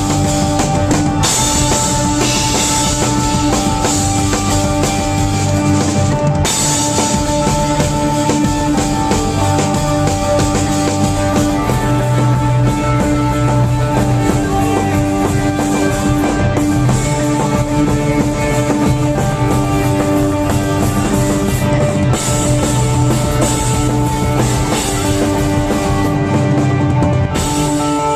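A rock band playing live, the drum kit to the fore under long held notes.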